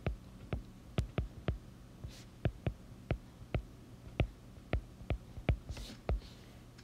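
A stylus tip tapping on a tablet's glass screen during handwriting: a string of sharp, irregular clicks, about three a second, one with each stroke of the pen.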